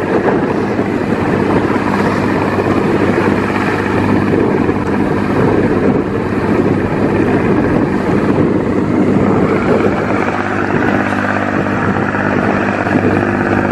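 Fishing boat's engine running steadily under way while towing a small skiff, mixed with the rush of water and wind as the boats move at speed.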